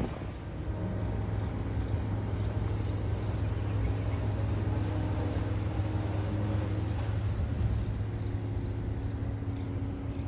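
Steady low engine drone of the Star of Knoxville sternwheel riverboat as it comes in to dock, with faint high ticks repeating about three times a second.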